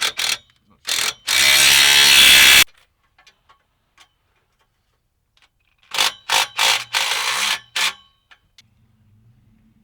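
Power wrench driving fasteners: one loud, fast-buzzing run of about a second and a half, then about six short bursts in quick succession near the end, with a few light clicks of tool handling.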